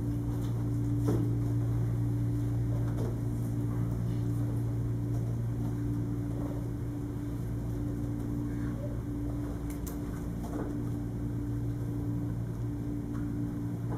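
A steady low hum of room machinery or electrical equipment, with a few faint clicks from laptop keys as commands are typed.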